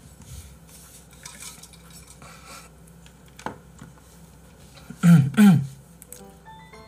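Light clinks and taps of tableware and cutlery, with a brief two-part hummed voice sound about five seconds in. A few soft music notes begin near the end.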